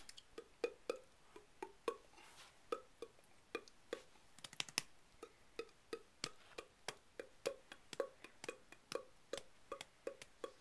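An adult clapping hands, a run of quick, uneven claps at about three a second.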